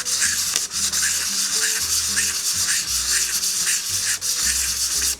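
Micarta spacer being rubbed by hand back and forth on 240-grit sandpaper, a scratchy hiss in a quick rhythm of about two or three strokes a second. It is scuffing the surface so the glue can grip, and it stops at the very end.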